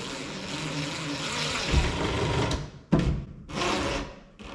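Drill driving an EZ-Level cabinet leveler to jack up the back corner of a kitchen base cabinet. It runs steadily, stops about two and a half seconds in, then gives two short bursts as the height is fine-tuned.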